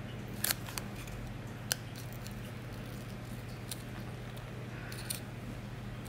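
Disposable nail form for an acrylic extension being bent and pinched into shape, giving a few sharp crinkling clicks, two about half a second in, one just before two seconds and one near the end.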